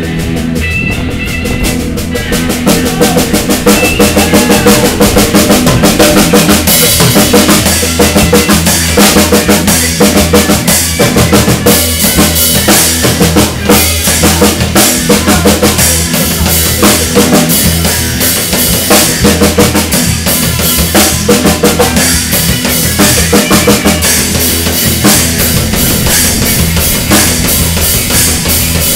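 Three-piece rock band playing instrumentally: drum kit with driving snare and bass drum hits, electric guitar and bass guitar. The playing grows louder about two seconds in.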